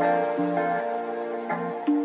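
Slow, tender music: sustained notes with plucked string notes over them, the melody changing note every half-second or so.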